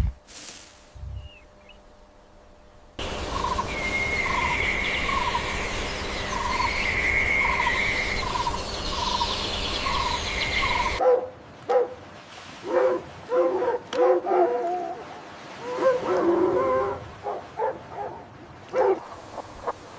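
Animal calls: a noisy stretch with a regularly repeating chirp, then, from about halfway, dogs yipping and barking in quick short bursts.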